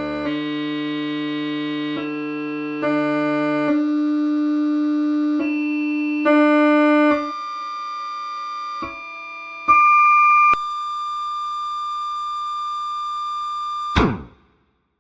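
Black MIDI playback on a synthesized keyboard: masses of rapidly repeated notes blur into held chords that change every second or so. A loud high chord rings near the end, then the pitch slides sharply downward and the sound cuts off suddenly.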